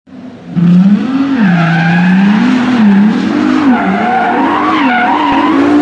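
Sports car engine revving up and down while its tyres squeal in a skid, starting about half a second in.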